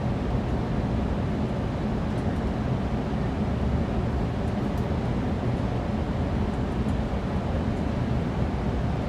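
Steady low rumbling background noise, heaviest in the bass, with no distinct events and no change in level.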